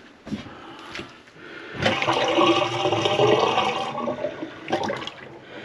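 A gush of running water, starting about two seconds in and lasting about two and a half seconds, with a few short knocks around it.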